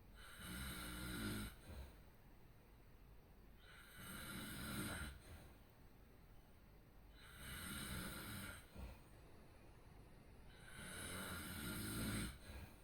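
A sleeping person snoring in a regular rhythm: four long snores, one every three and a half seconds or so.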